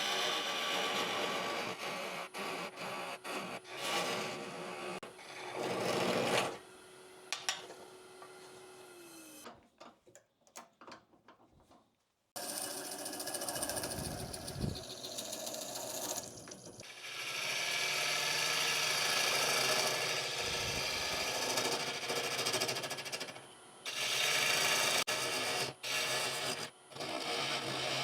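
Turning gouge hollowing the inside of a hard, dried oak bowl spinning on a wood lathe: a rough, rasping cut that starts and stops as the tool is worked, with a quiet break about ten seconds in before cutting resumes abruptly.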